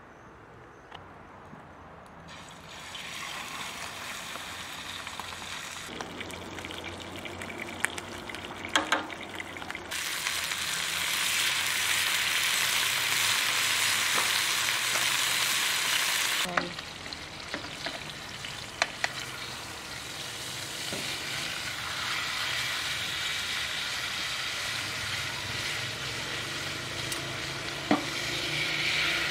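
Salmon fillet sizzling in a grill pan. The sizzle starts a few seconds in, grows loudest in the middle, drops suddenly, then builds again, with a few sharp knocks against the pan along the way.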